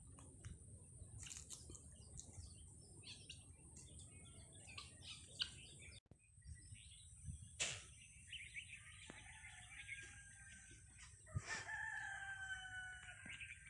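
A rooster crows faintly several times in the second half, the last crow held longer. Before that there are only faint scattered clicks.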